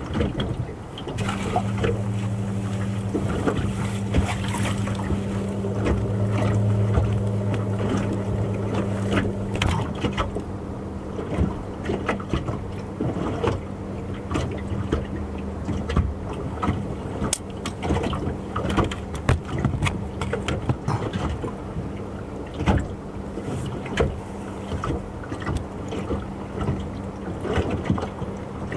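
A boat engine hums steadily, strong for the first ten seconds or so and fainter after that. Irregular light knocks and water slaps against the small fishing boat's hull go on throughout.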